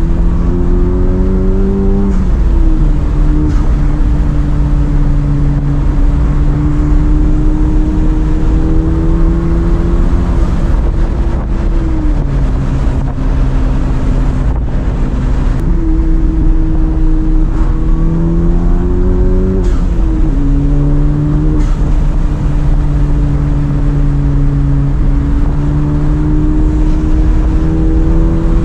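Engine and road noise of an E85-tuned 10th-generation Honda Civic heard from inside the cabin while driving at highway speed. The engine hum rises slowly and drops sharply a few times as the throttle changes, over a steady low tyre rumble.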